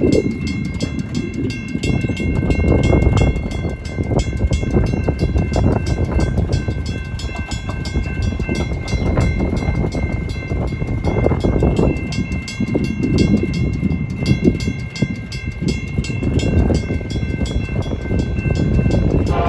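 Railroad crossing bells ringing continuously, a General Signals Type 2 electronic bell and a WCH mechanical bell, with fast, even strokes and steady high tones, over loud, uneven low-pitched noise.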